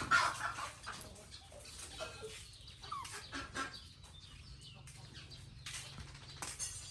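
Chickens clucking faintly, with scattered short calls.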